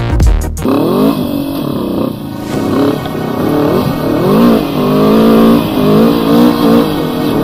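Bashan quad's swapped-in Suzuki GS500 parallel-twin engine revving up and down repeatedly, its pitch rising and falling several times.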